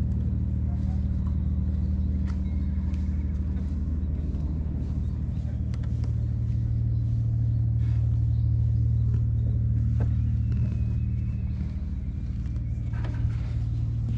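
Tabby cat purring steadily as its head and chin are stroked, a low continuous rumble that swells a little midway.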